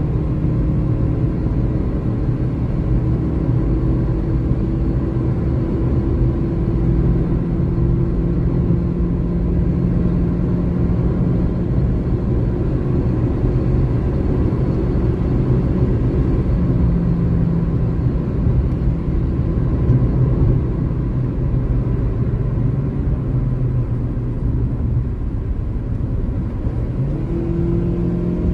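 Car engine and tyre-and-wind rumble heard from inside the cabin at highway speed. The engine note slowly rises as the car accelerates to around 135 km/h, softens as it slows, and picks up again near the end.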